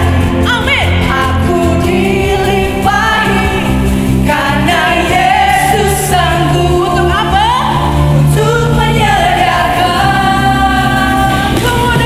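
Live church worship music: a praise band with voices singing together in a choir-like blend over a steady bass and band accompaniment.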